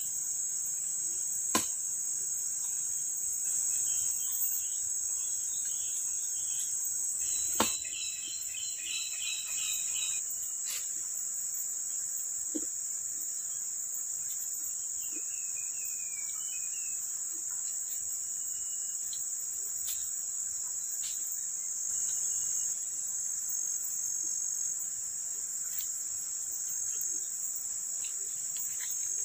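Steady high-pitched insect chorus of the tropical forest, running without a break. Two sharp knocks, about a second and a half in and again about seven and a half seconds in, and a few short chirping calls in between.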